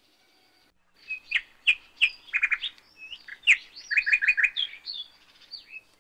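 Birds singing: a quick run of sharp chirps, rapid repeated notes and whistled rising and falling sweeps, starting about a second in.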